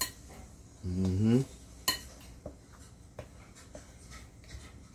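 A metal fork stirring flour in a glass mixing bowl: a soft scraping rustle with scattered clinks of the fork against the glass, the sharpest at the very start and a little under two seconds in. A brief voiced sound about a second in.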